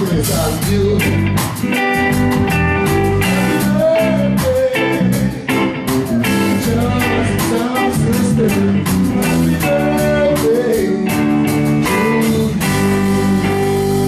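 Live band playing: electric guitar and electric bass over a drum kit keeping a steady beat.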